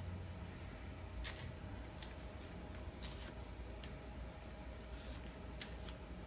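Faint rustling and a few short crackles of paper backing being peeled off a small square of Cover-Roll Stretch tape and the tape being handled, the sharpest crackle about a second in.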